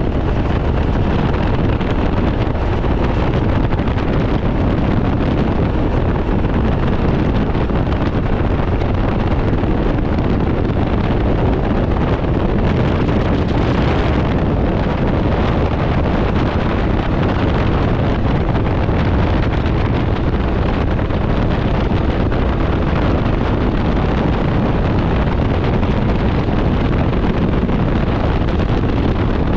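Steady wind buffeting the microphone of a rider on a Can-Am Ryker 900 three-wheeler at road speed, with the machine's engine and road noise running beneath. A brief hiss swells about halfway through.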